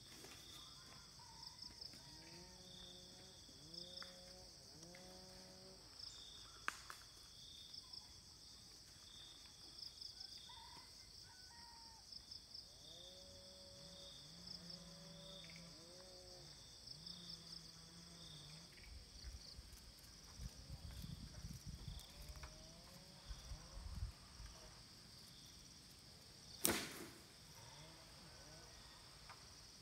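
Insects trilling steadily in a fast pulsing rhythm, with a soft animal call repeated in short groups of rising notes, and one sharp click near the end.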